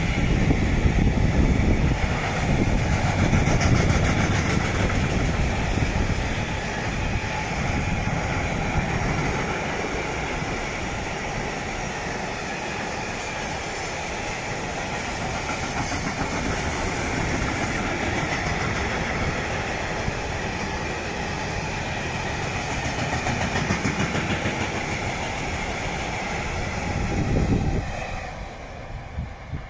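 Freight train of covered hopper wagons rolling past, wheels rumbling and clattering steadily on the rails. The sound drops off suddenly near the end.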